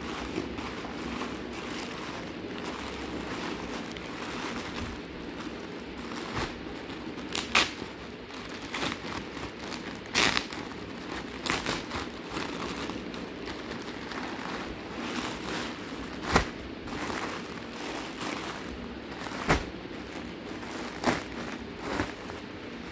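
Plastic packaging being handled and opened: a polythene courier mailer and the clear plastic bag inside crinkling and rustling, with sharp crackles every few seconds, over a steady low background hum.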